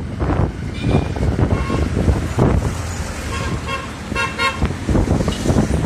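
A horn tooting in several short blasts, most of them between about one and four and a half seconds in, over low wind rumble on the microphone and street noise.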